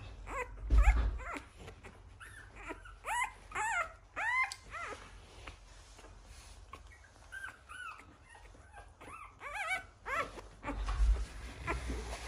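A one-week-old American Bully puppy squeaking and whimpering in a string of short high cries, each rising then falling in pitch. Two low thumps come about a second in and near the end.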